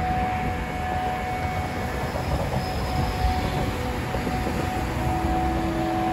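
Steady rumble of a running machine, with a constant low hum.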